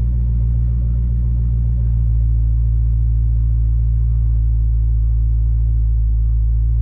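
Dodge Challenger's V8 engine idling steadily, heard from inside the cabin, running on a newly installed unlocked engine computer (PCM).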